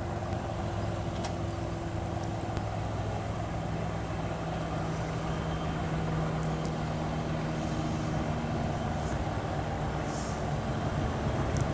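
Distant Class 37 diesel locomotive running under its English Electric V12 engine as it approaches: a steady drone that grows a little louder near the end.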